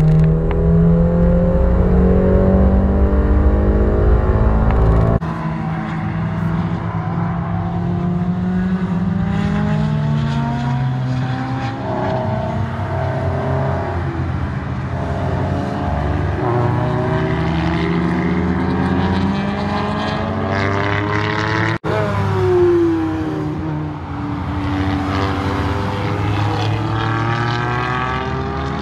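Inside the cabin of a 1989 Honda Civic ED7, its four-cylinder engine running at steady high revs for the first five seconds. Then, heard trackside, several race cars' engines rise and fall in pitch as they lap the circuit. One sweeps past loudest with a falling pitch about three quarters of the way through.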